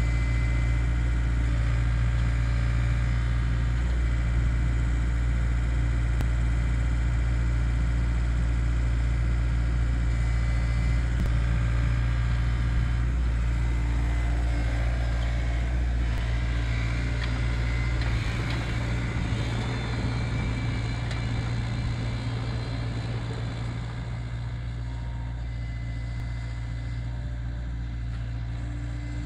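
Takeuchi TB175 compact excavator's diesel engine running steadily at working revs while it powers a hydraulic auger drilling into soil, a loud low hum. The hum becomes quieter about two-thirds of the way through.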